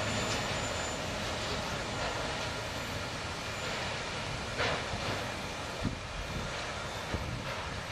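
An empty autorack freight train rolling away on the rails, its cars making a steady clatter that slowly fades, with a few sharp clicks from the wheels and rail joints in the second half.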